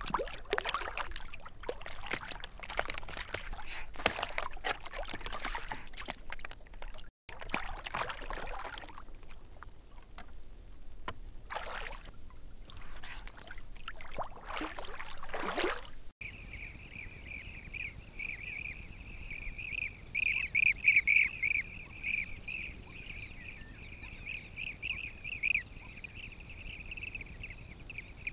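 Eurasian otters splashing and rolling in river water: irregular splashes and sloshing that cut off about sixteen seconds in. Then blue-cheeked bee-eaters calling, a continuous run of rolling, trilled calls that grows louder for a few seconds in the middle.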